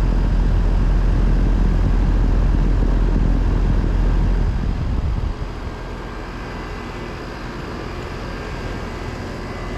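York LX Series 5-ton central air conditioner condensing unit running: Broad Ocean fan motor moving air and LG scroll compressor humming. A heavy low rumble dominates at first, then drops noticeably about halfway through and the unit carries on at a lower, steady level.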